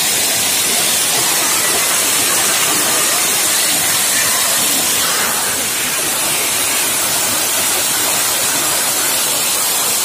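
High waterfall pouring down a steep rock face close by, its water splashing and spraying on the rock: a loud, steady rushing hiss.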